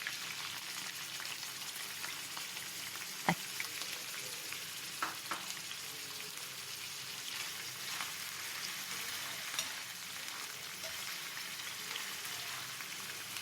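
Finely chopped onions sizzling steadily as they fry in hot ghee, with a few sharp knocks against the pot about three and five seconds in.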